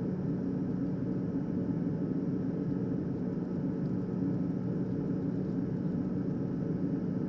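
Steady background hum with a constant low tone over an even hiss, and no distinct events.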